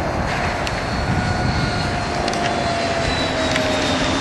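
Engine of a radio-controlled P-51 Mustang model in flight, a steady buzzing drone whose pitch slowly falls as the plane flies past.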